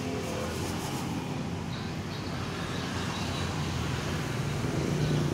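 Steady road traffic noise: vehicles passing on a nearby road, with a low engine hum that grows slightly louder toward the end.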